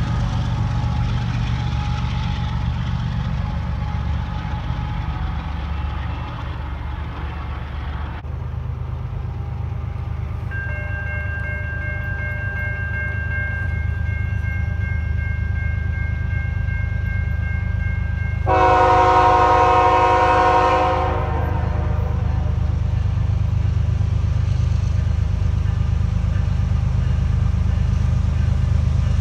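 Train rumble that cuts off abruptly about eight seconds in. After it, an approaching train led by a CN ES44AC diesel locomotive gives a steady low rumble and sounds one long horn blast of about two and a half seconds, about two-thirds of the way in. A steady high ringing, typical of a grade-crossing bell, runs from about ten seconds in.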